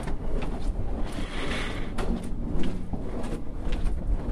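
Footsteps of people walking on a carpeted corridor floor: soft, fairly regular steps, roughly two a second, over a steady low rumble.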